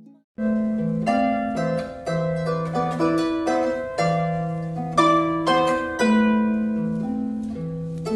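Harp music: plucked notes that ring and fade over a repeating bass figure, starting after a brief silence.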